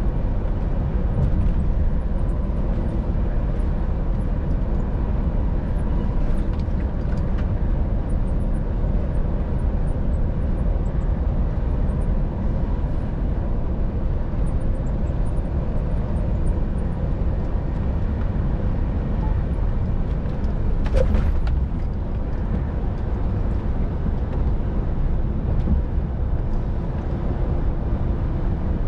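Inside the cab of a loaded Scania R500 truck cruising on a motorway: a steady low engine drone mixed with tyre and road noise. A short sharp click or knock comes about 21 seconds in.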